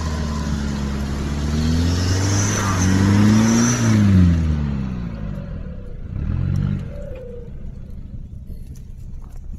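Nissan Patrol GR Y61's engine revving under load as it drives through deep mud. The pitch rises over the first four seconds, then eases off, with a short rev again about six seconds in before it fades.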